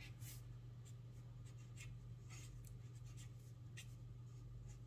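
Faint scratching of a pen writing on paper in short separate strokes, over a steady low hum.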